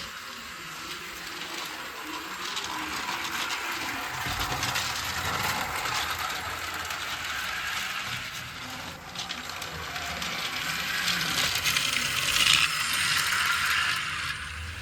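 Toy train running on its track, with a dense mechanical clatter of small gears and wheels rattling over the rails that grows louder and softer at times.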